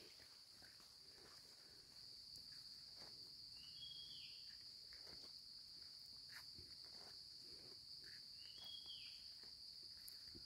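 Faint, steady high-pitched insect drone of crickets. Two short chirps cut in about four seconds apart.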